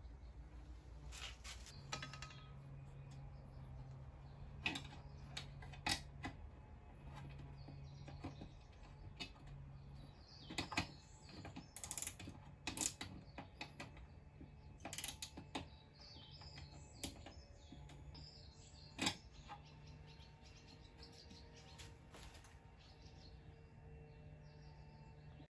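Scattered sharp clicks and taps from hands fitting the badge onto the vinyl-wrapped bonnet cowl, over a steady low hum, with birds chirping faintly in the background.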